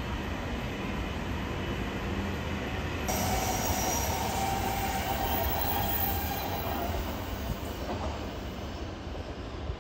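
E7/W7-series Shinkansen train running past on the rails with a steady rumble. From about three seconds in, a thin high tone rides on top and fades out around seven seconds.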